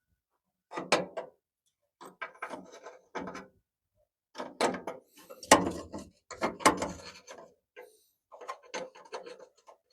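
Hand tools working on a truck's hood latch: irregular clusters of metal clicks, knocks and scraping, with the sharpest knocks a little over halfway through.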